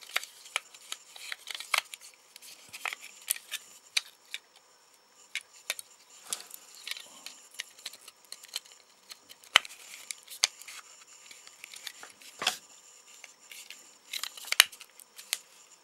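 Small sharp clicks and ticks of a Nokia 1100's circuit board and connector parts being handled and pressed into place by hand. Two louder clicks stand out, one a little past halfway and one near the end.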